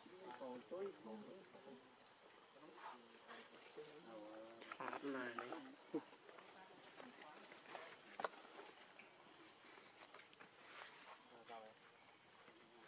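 Steady high-pitched insect chorus of crickets or cicadas, with faint indistinct voices about five seconds in and a couple of sharp clicks.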